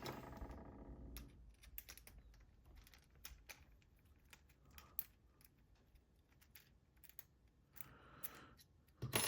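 Faint, scattered small metal clicks and taps from a padlock being disassembled by hand with tools. A metallic ring dies away in the first second, and a louder clack comes near the end.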